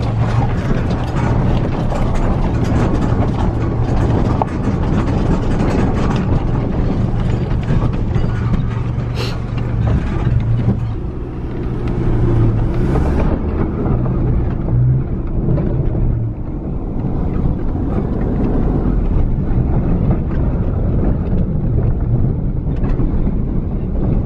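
Cab noise inside a Holden RC Colorado ute driving a rough dirt track: a steady low engine and tyre rumble with a constant rattling and knocking from the body and interior as it goes over the bumps.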